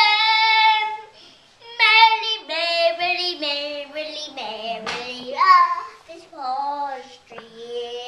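A young boy singing, holding long notes that step up and down, with a short break about a second in.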